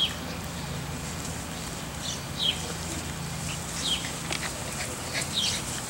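Several faint, short, high-pitched animal chirps, each falling slightly in pitch, scattered through a few seconds over a low steady hum.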